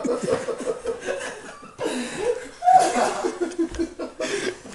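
People laughing and chuckling, with a few breathy snickers.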